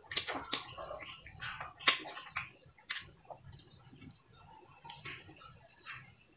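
Close-up mouth sounds of sucking and chewing the white pulp off fresh cacao seeds, with sharp lip smacks and clicks, the loudest near the start and about two seconds in.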